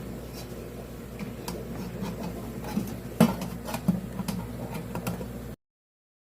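Carrier floor-standing air conditioner running with a steady low hum, under scattered light clicks and knocks. One sharp knock comes a little past three seconds in, and the sound cuts off abruptly near the end.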